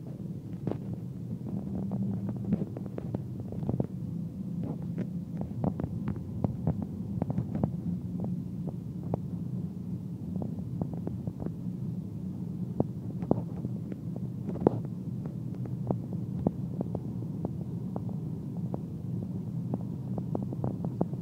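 Cabin noise of a BMW 330d E91 touring, chip-tuned to 296 PS, travelling at about 240–250 km/h: a steady low drone from its three-litre straight-six turbodiesel and the road, with frequent sharp clicks scattered through it.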